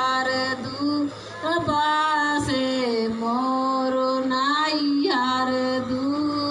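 A woman singing a Bhojpuri folk song in long, drawn-out notes that glide between pitches, with a short breath about a second in.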